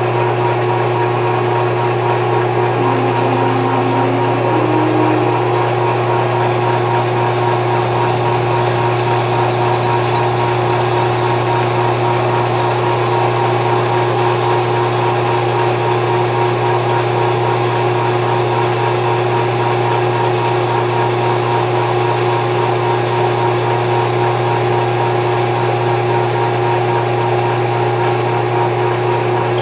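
Metal lathe running steadily while boring out the bore of a cast drive pulley to enlarge it, giving a constant hum with steady tones above it.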